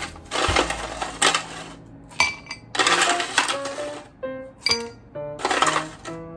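Ice cubes dropped into a glass mug, clattering and clinking in three bursts with a few single clinks between, over background music.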